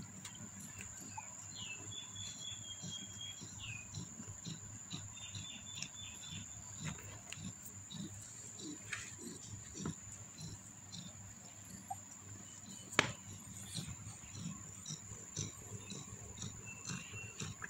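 Faint, thin high squeaks from newborn kittens nursing at their mother, two of them drawn out over a second each in the first six seconds and a shorter one near the end, over soft low rustling. A single sharp click about thirteen seconds in.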